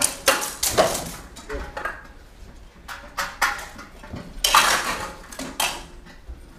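Steel cut-and-thrust swords clashing in an irregular run of sharp metallic strikes with brief ringing. The longest, loudest burst of clatter comes about four and a half seconds in.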